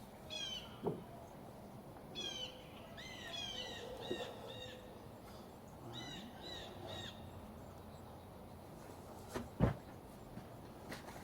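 A small songbird singing several short phrases of quick, repeated high chirps over faint outdoor background noise. A single knock sounds near the end.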